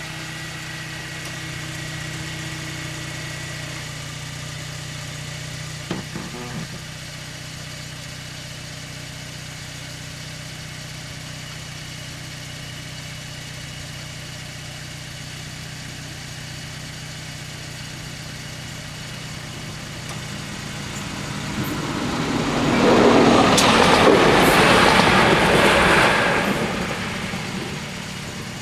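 Level crossing barrier lowering: a drive whine stops about four seconds in, and a sharp clack follows about six seconds in as the boom comes to rest, over a steady low engine hum. Near the end a loud rushing noise swells up for a few seconds and fades.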